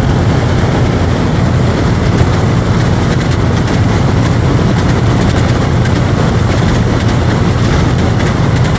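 Outdoor air-conditioning condenser unit running: the compressor and condenser fan make a steady, loud low hum with an even rush of air.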